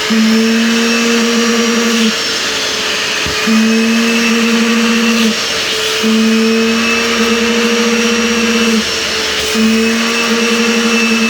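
Sofa-washing vacuum cleaner (wet upholstery extractor) running steadily as it cleans a fabric sofa, with a lower hum that cuts in and out four times, each run lasting about two seconds.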